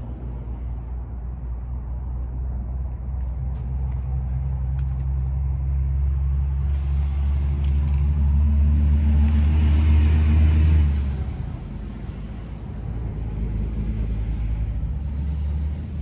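Engine rumble with a steady low hum, swelling louder to a peak about eleven seconds in and then dropping away sharply. Near the end a thin, high whine slowly falls in pitch.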